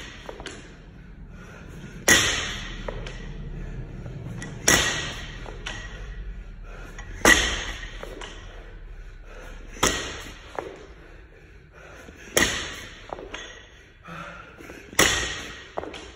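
Loaded barbell with bumper plates clanking and thudding once per ground-to-overhead rep, six sharp metallic hits about two and a half seconds apart, each ringing briefly, with hard breathing between them.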